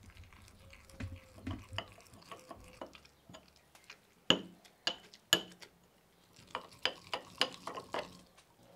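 Metal pestle pounding and grinding basil pesto in a metal mortar: irregular knocks and scrapes, with three sharp strikes around the middle and a quicker run of knocks near the end.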